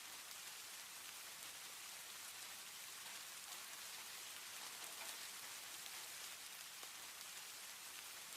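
Steady soft rain, an even hiss with faint scattered drop ticks.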